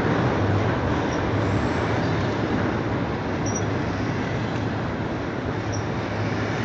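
Double-stack container freight train of BNSF well cars rolling past at close range: a steady rumble and rattle of wheels on the rails, with a few brief faint high squeaks now and then.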